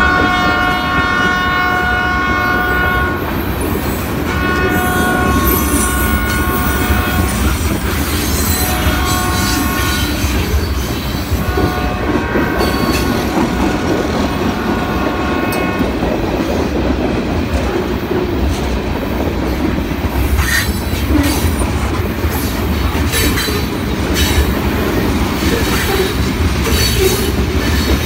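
Freight train's tank cars rolling past with a steady rumble and wheels clacking over rail joints, while the locomotive's air horn sounds the grade-crossing signal over the first half: long, long, short, long. In the second half, sharper wheel clicks and some wheel squeal.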